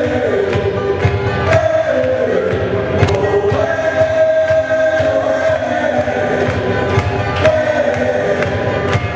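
Dance music with sung vocals holding long notes over a steady beat.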